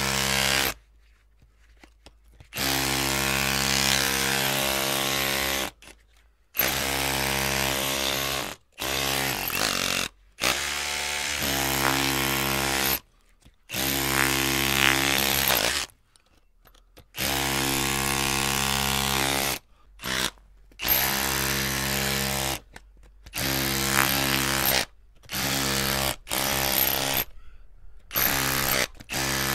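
Electric drill running in repeated bursts of about half a second to three seconds, its motor holding a steady pitch while on and stopping abruptly between bursts as the trigger is released.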